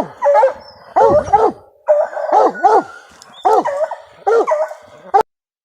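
Bear hounds baying in a string of drawn-out, wavering bawls, five or so in a row, cutting off abruptly near the end.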